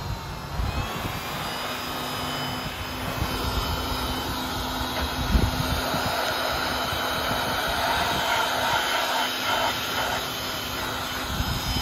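Electric heat gun running steadily, its fan blowing hot air over black plastic wheel-arch trim with a steady hum. There is a single thump about five seconds in.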